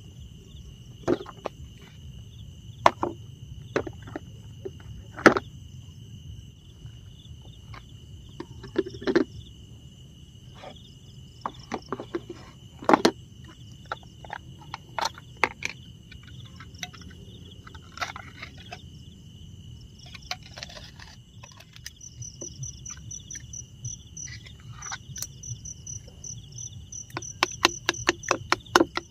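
Jungle night insects singing steadily in two high, even tones over a low rumble, with scattered sharp clicks and knocks. About two-thirds of the way in a fast pulsing high trill joins, and a quick run of clicks comes near the end.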